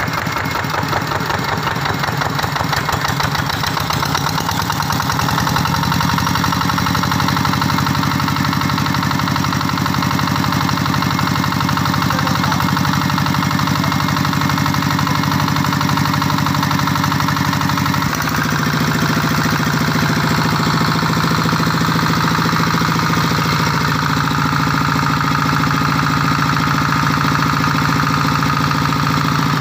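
Vikyno RV145-2 14 hp single-cylinder water-cooled diesel engine running steadily, with a rapid, even chugging from its firing strokes. The sound settles a few seconds in and shifts abruptly about two-thirds of the way through.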